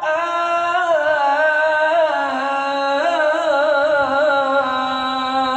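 A man singing sholawat solo into a microphone, stretching one long melismatic phrase with wavering ornaments. The voice settles onto a lower held note a little past two seconds in, and no drums are heard.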